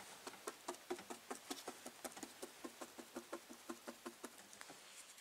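Paintbrush dabbing fiberglass resin into fiberglass cloth: a rapid run of faint wet taps, several a second, that stops near the end.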